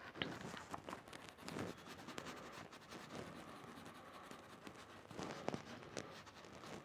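Crayon scratching on paper in short, irregular shading strokes, faint.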